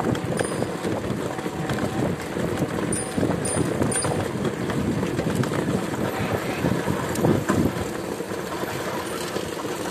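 Wind buffeting the microphone and road noise from riding along a paved road, a dense, uneven rumble with no engine note. Three short high chirps come about three to four seconds in.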